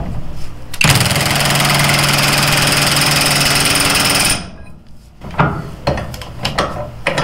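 Hercules HCB84B 20V brushless 1/2-inch impact wrench hammering a nut tight on its lowest speed. The loud, fast hammering starts about a second in, runs for about three and a half seconds and stops suddenly. A few light knocks follow as a torque wrench is fitted onto the socket.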